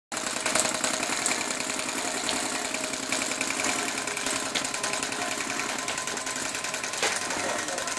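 Wood-fired Stirling engine running steadily at about 350 rpm: a fast, even mechanical clatter with a few sharper clicks.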